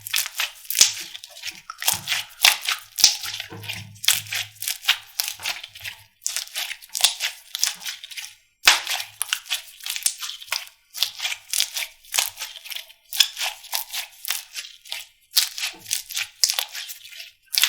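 Slime being squeezed and poked by hand, giving a dense, irregular run of crisp crackling and popping clicks, with brief pauses.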